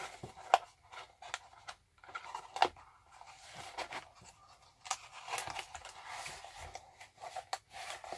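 Cardboard housing of a Google AIY Voice Kit being folded shut by hand: the flaps rustle and scrape against each other, with a few sharp taps and clicks, the loudest about half a second in.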